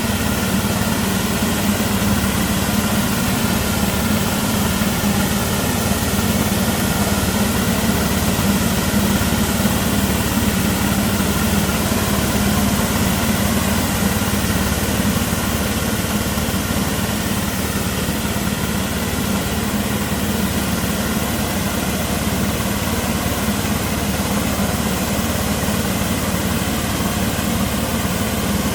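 Orchard speed sprayer (air-blast sprayer) running steadily while spraying: an even engine hum with a continuous airy hiss over it.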